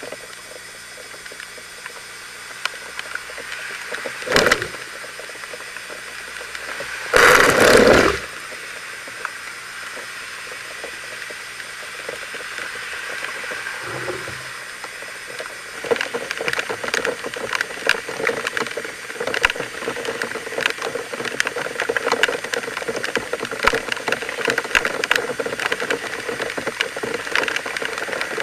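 Cars driving through a flooded road in heavy rain, their tyres hissing and splashing through standing water. The loudest pass is a rush of spray about seven seconds in. From a little past halfway, a dense crackling patter of hard rain takes over.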